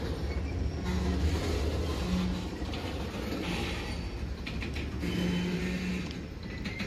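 Freight train rolling past: a steady low rumble of wheels on rail, with an on-and-off low hum over it.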